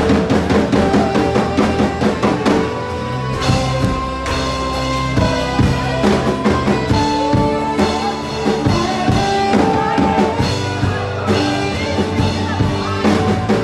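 Live worship band playing an instrumental passage: a drum-kit beat with bass and acoustic guitar, and a saxophone playing sustained, bending melody notes over them.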